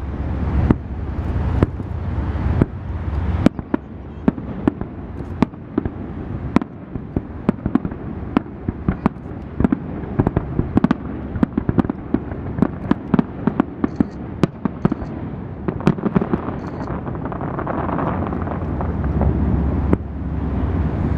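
Fireworks going off in a rapid run of sharp bangs and crackles, many a second at the height, thickest in the middle and thinning out near the end, over a low rumble.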